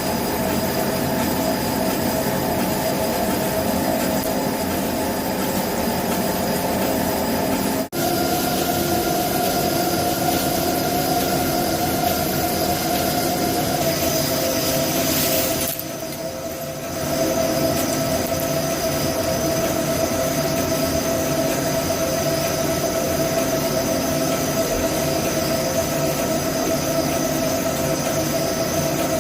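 CNC lathe running a cut: a steady squealing whine over a continuous machining hiss. It breaks off for an instant about eight seconds in and drops for about a second around sixteen seconds in.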